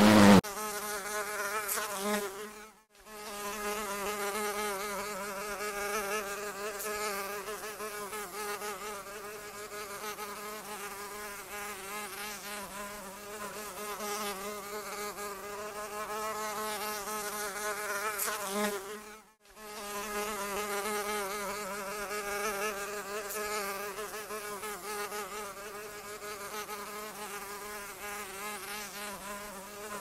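Housefly buzzing: a steady droning hum that wavers in pitch. It breaks off briefly twice, about three seconds in and again near nineteen seconds.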